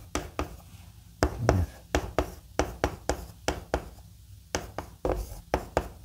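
White chalk tapping and scraping on a blackboard as characters are written: a run of sharp, irregular taps, about three to four a second.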